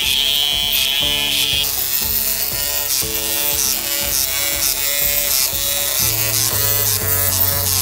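Electric hammer with a tamping plate pounding crushed concrete rubble in a rapid mechanical rattle, tamping down the fill, which settles after compaction. The rattle ends about one and a half seconds in. Background music plays throughout.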